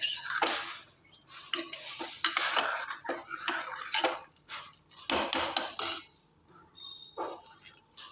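Metal kitchen utensils clattering: a spoon and steel pots or dishes knocking and clinking in a run of irregular strokes, busiest about two seconds in and again around five seconds in.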